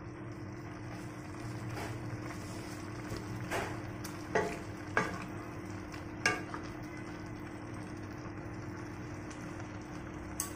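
Wooden spatula and chopsticks stirring dry rice vermicelli into simmering broth in a stainless steel wok. There are a few sharp taps of the utensils on the pan around the middle, over a steady low hum.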